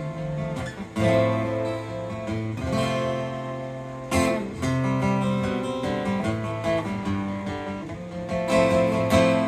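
Taylor 112ce acoustic-electric guitar playing an instrumental passage of sustained chords, with fresh strums about a second in, near the middle and near the end.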